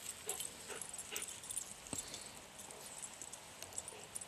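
Faint rustling and crunching of footsteps through dry field cover, with a few short whines from a hunting dog.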